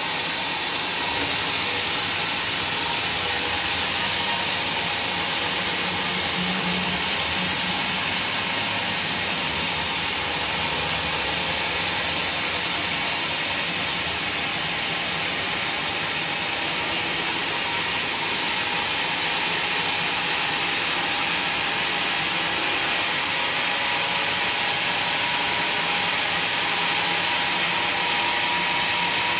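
A woodworking power tool running steadily on wood: a continuous, even, hissing whir with no pauses.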